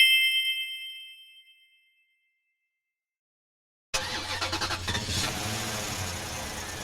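A single bright chime strikes and rings out, fading over about a second and a half. After a silent gap, a steady rattling mechanical running noise starts about four seconds in and carries on.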